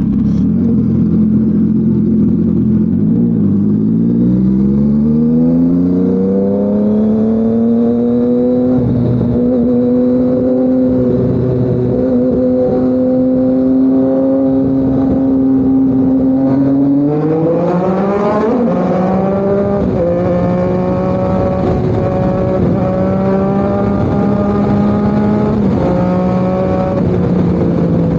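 Yamaha MT-09's three-cylinder engine running through an SC Project CRT exhaust while the bike is ridden. The engine note climbs a few seconds in as it accelerates, holds steady, climbs steeply again about two-thirds of the way through, then holds and eases off near the end.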